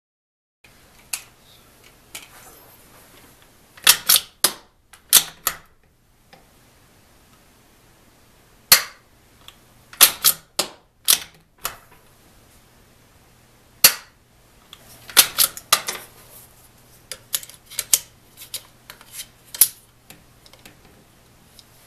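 Steyr Mannlicher Zephyr II .22 LR bolt-action rifle being worked by hand: sharp metallic clicks and clacks of the bolt lifting, sliding and locking, some in quick clusters of two to four, others single, about a dozen times.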